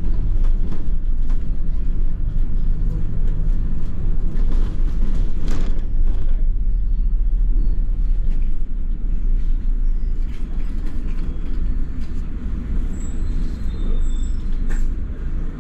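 A London double-decker bus heard from inside while it drives: a steady low engine and road rumble, with brief knocks and rattles from the bodywork now and then.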